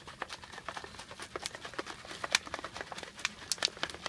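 Rapid, irregular plastic clicks and taps from a plastic supplement shaker bottle being handled and worked, ending in one sharp click.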